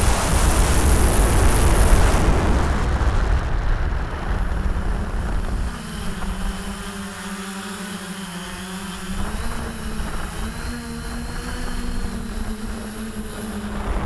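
The six brushless motors and 10-inch propellers of a DJI F550 hexacopter running, heard from a camera mounted on the frame. For the first few seconds heavy wind buffeting on the microphone covers them. Then a steady low propeller hum with a faint high whine comes through, its pitch shifting slightly as the throttle changes.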